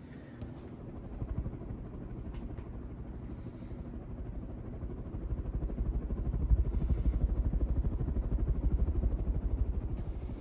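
Four-blade Nutone hugger ceiling fan running at high speed, its blades pushing air in a fast, rhythmic whoosh. The whoosh builds from about a second in and is strongest past the middle.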